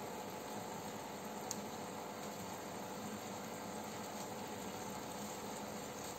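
Aquarium aeration running: a steady low hum with a hiss of bubbling water, and one faint click about one and a half seconds in.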